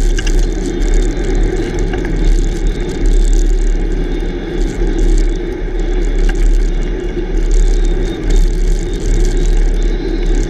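Wind buffeting the microphone of a camera mounted low on a moving bicycle, a steady loud rumble that swells and dips, with the tyre rolling on coarse asphalt.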